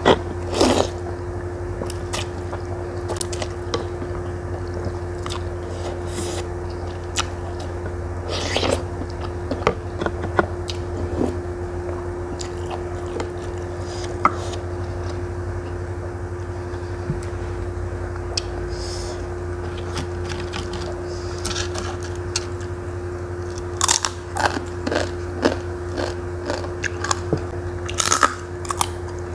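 Close-miked eating: quiet chewing of bakso and noodles with scattered wet clicks, then, from about five seconds before the end, sharp repeated crunching of crispy fried crackers. A steady low hum sits underneath.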